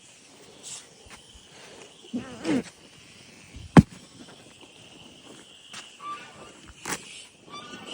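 Outdoor farm sounds: a faint steady high insect drone under a few sharp knocks, the loudest about four seconds in, with a short low call about two seconds in.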